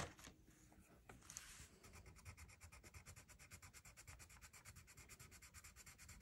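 Faint, quick, even back-and-forth scratching of a gold metallic colored pencil on paper, coloring in a swatch; the steady strokes start about a second in.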